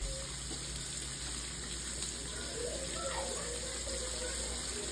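Onion gravy simmering in a stainless steel skillet, a steady watery bubbling hiss.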